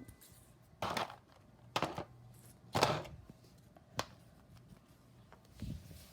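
Four short taps about a second apart, the last one a sharp click, then a softer low thump near the end.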